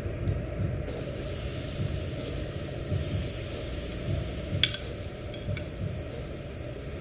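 Shrimp sizzling as they are laid one by one onto a hot tabletop yakiniku grill with metal tongs; the hiss comes up about a second in, over a steady low rumble. A sharp click of the tongs about two-thirds of the way through.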